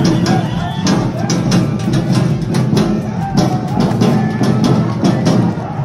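Festival drumming with rapid, dense percussive strikes, mixed with short rising-and-falling calls from the parade.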